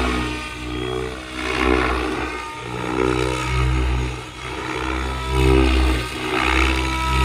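Large electric RC helicopter (XL Power Specter 700, brushless motor) flying: the rotor blades and motor give a steady pitched buzz that swells and fades every second or two as it manoeuvres.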